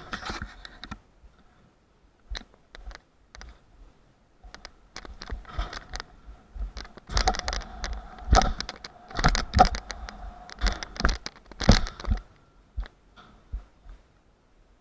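Small hard wheels rolling and grinding over concrete ramps, with repeated sharp clacks and knocks from a deck landing and striking coping. The riding is sparse at first, then comes thick and loud from about five seconds in, and eases off near the end.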